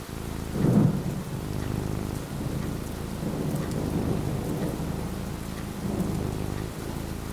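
Thunderstorm: steady rain with thunder that swells loudly about a second in and keeps rumbling low afterwards.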